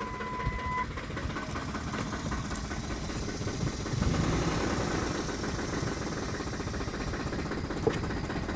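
2007 Ford F-150's 5.4 L V8 engine running, given a little throttle about four seconds in so that it gets louder, then easing back toward idle. The truck has a rough idle after deceleration. A short electronic beep sounds at the start.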